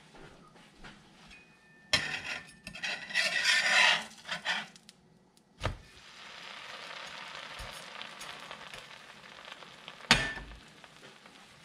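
Metal spatula scraping under a grilled cheese sandwich on a cast-iron griddle, then a soft thump as the sandwich is flipped, after which it sizzles steadily in the hot pan. Near the end the spatula is set down on the glass cooktop with a sharp clack.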